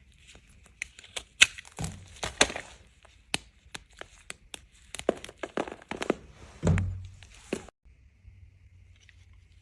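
A knife cutting through a dry bar of soap: a dense run of sharp cracks and crunches as the blade breaks through, with two heavier thuds. It stops abruptly about eight seconds in.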